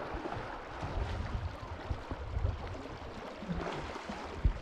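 River water rushing and sloshing around someone wading, with irregular low rumbles and a sharp thump near the end.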